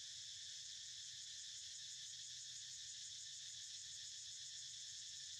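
Steady, shrill insect chorus droning without a break.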